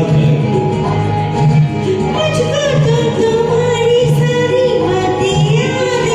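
Backing track of a Hindi film song duet, with a bass beat recurring about every 0.7 seconds under a melody line.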